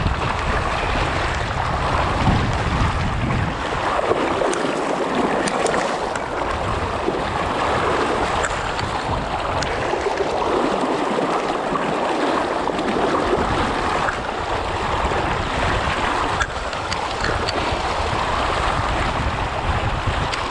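Rushing river water, with wind buffeting the microphone; the low buffeting drops away for several seconds in the middle.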